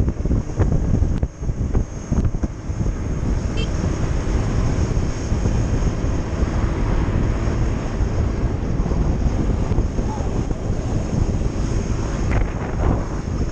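Wind buffeting the microphone while riding a Piaggio Beverly 200 scooter at road speed, with the scooter's engine running underneath. The first couple of seconds are gusty, and a car passes close by near the end.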